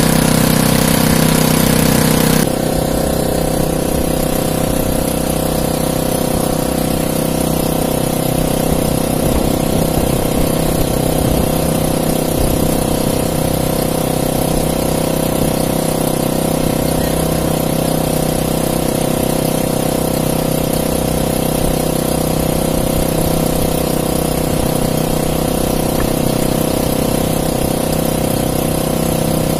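A small engine aboard an outrigger fishing boat, running steadily at a constant speed. About two seconds in, its sound changes abruptly and becomes a little quieter and less deep, then holds steady.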